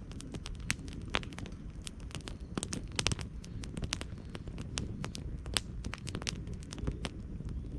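Wood campfire crackling: irregular sharp pops, a few louder than the rest, over a low steady rumble.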